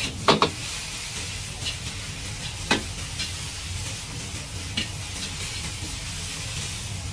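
Egg fried rice sizzling steadily in a wok while a metal ladle stirs and scrapes it, the ladle knocking sharply against the wok: a quick double knock just after the start, another near three seconds in, and a lighter one near five seconds.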